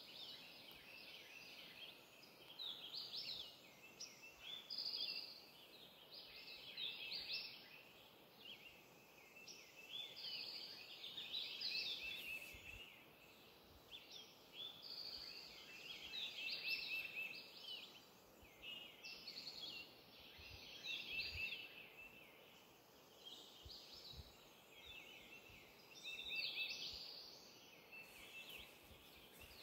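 Morning chorus of several songbirds singing and calling from the trees, many short, high chirping and trilling phrases overlapping one another.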